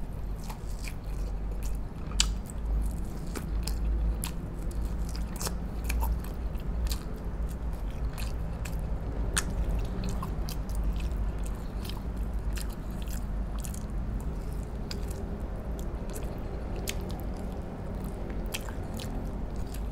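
Close-miked mukbang chewing and biting of pork spare ribs braised in coconut water, with many short sharp mouth clicks throughout.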